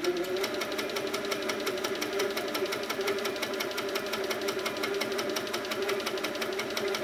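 Handi Quilter Sweet Sixteen longarm quilting machine stitching at a steady speed, its motor humming under a rapid, even ticking of the needle strokes as the quilt is guided along a ruler.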